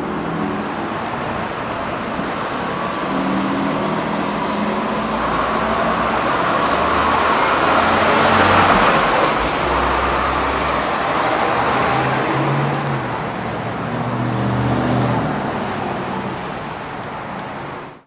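Road traffic: diesel truck engines and tyres running past, a heavy fire engine among them, with no siren sounding. It swells to its loudest as a heavy vehicle passes close about eight or nine seconds in, then fades.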